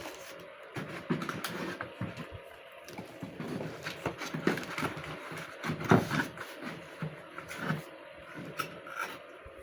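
Irregular clicks, knocks and rustles of packaging and plastic parts being handled while a robot vacuum is unboxed.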